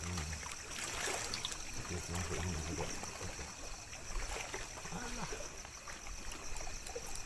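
Lake water splashing and trickling, with low murmured voices coming and going.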